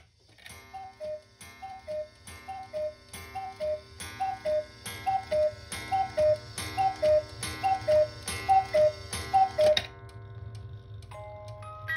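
Swiss Lötscher cuckoo clock calling the hour: its bellows-driven cuckoo sounds a falling two-note call over and over, just under a second apart, each call with a click of the mechanism. Near the end its 22-note MAPSA music box starts plucking a tune.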